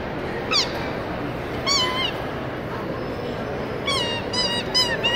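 A series of short, high-pitched meow-like calls: a single falling one about half a second in, another near two seconds, then four quick ones close together from about four seconds on, over steady background noise.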